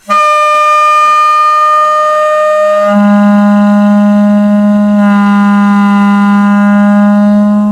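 Homemade PVC air horn with a rubber diaphragm, blown by compressed air released from a PVC air cannon pumped to 50 PSI. It sounds one long, loud horn blast that starts as a higher tone and drops to a much deeper, stronger tone about three seconds in.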